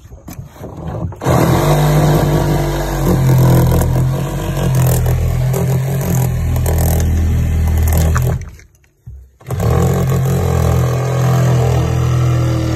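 Compact cordless Milwaukee saw running as it cuts through the boat's fiberglass hull. It starts about a second in, stops for about a second near the middle, then starts cutting again.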